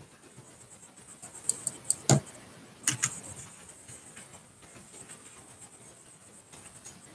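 Several sharp clicks and taps close to the microphone: four quick ones between about one and a half and two seconds in, the last a heavier knock, then two more near three seconds. Low room noise otherwise.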